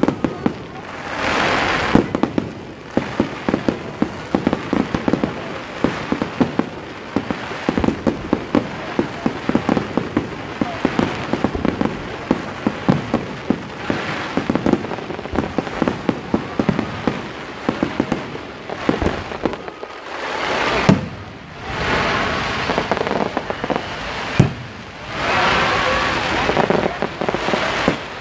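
Aerial fireworks display: a dense, continuous run of sharp bangs and crackles. Three longer swells of noise come about a second in, after about twenty seconds, and near the end.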